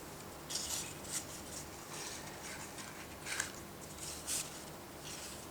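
Paper being handled: a few short, faint rustles and slides of paper card, as tags are drawn out of a paper envelope.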